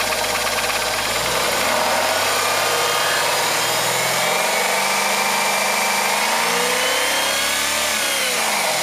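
Rover 75 2.0-litre engine revved up, its pitch climbing for several seconds and then dropping back quickly near the end. The owner is showing a knock from under the bonnet whose cause he does not know.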